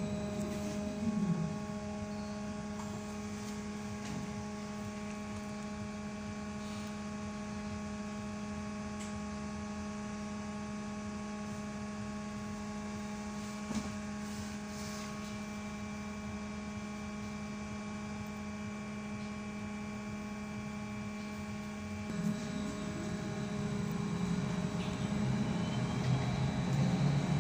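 Electric hum inside a BKM 321 trolleybus. The drive whine falls in pitch near the start, then a steady hum holds with no change in loudness. From about 22 s in a whine rises in pitch and grows louder as the trolleybus picks up speed.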